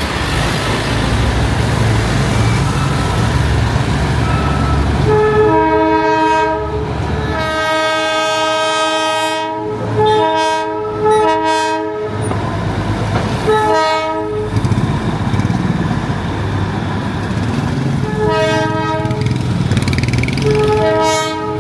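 Darjeeling Himalayan Railway toy train sounding its horn in a run of about seven blasts, long and short, starting about five seconds in, over the steady low rumble of the running train.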